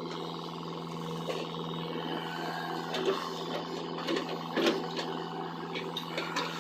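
XCMG mini excavator's diesel engine running steadily while digging, with a few short knocks around the middle and near the end.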